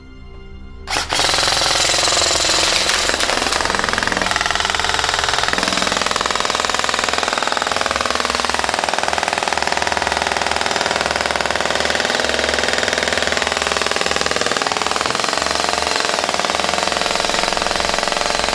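A loud, continuous, very fast rattle, like a machine running, starts about a second in and cuts off abruptly at the end.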